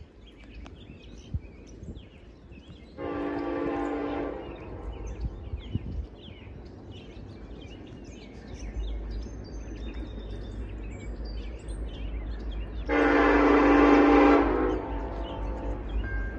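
An approaching train's locomotive air horn sounds two blasts, each a chord of several notes: a shorter one about three seconds in and a louder one near the end. Between them a low rumble of the oncoming train builds.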